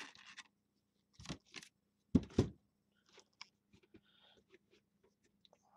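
Sealed, shrink-wrapped 2016 Immaculate Football card boxes being handled: plastic wrap crinkling and rustling, with two loud thumps about two seconds in as a box is set down on the table.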